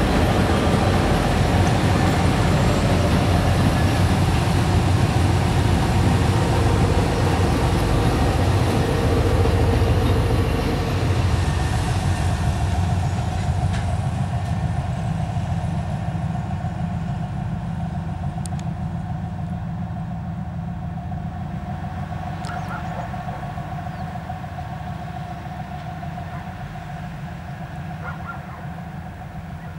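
Multi-section 4TE10S and 3TE10U diesel locomotives running past under power, their two-stroke diesel engines making a loud, steady drone. From about twelve seconds in the sound dulls and fades as the locomotives draw away.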